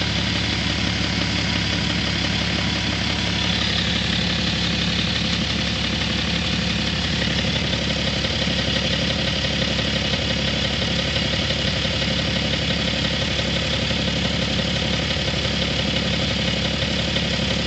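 BMW M57T2 straight-six diesel engine idling steadily with an even, regular knock. The cause of the knock has not yet been found.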